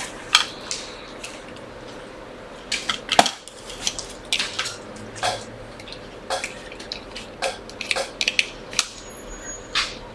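Irregular sharp clicks and light metallic clinks of small tools and parts being handled on a repair bench, with one louder knock about three seconds in.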